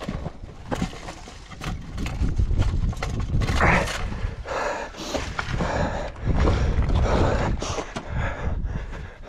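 Mountain bike ridden over a rough, stony trail: the bike rattles and knocks at every rock, over a constant low rumble.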